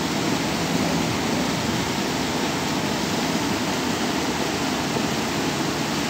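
Floodwater rushing steadily over a low concrete spillway crossing, a constant even roar of water spilling over its edge.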